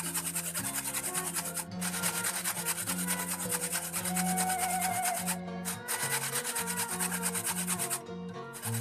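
Fresh coconut flesh being grated on a flat metal hand grater: quick, even rasping strokes, with a few brief pauses.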